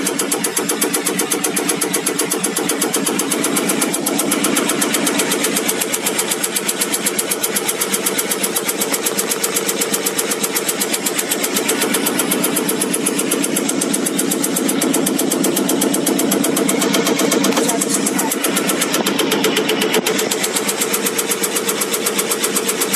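Diesel injector test stand running a Caterpillar 3412E HEUI injector: a steady pump drone with the injector firing in a rapid, even ticking.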